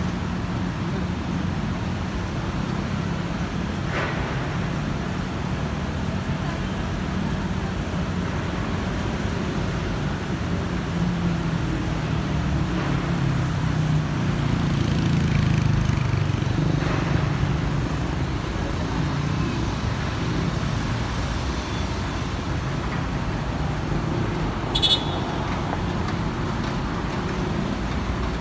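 City street traffic: a steady hum of car engines and tyres, swelling for a few seconds in the middle as vehicles pass. A brief high-pitched chirp sounds near the end.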